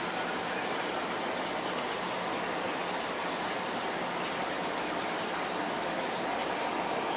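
Steady splashing and trickling of water in a turtle aquarium, the running sound of the tank's filter.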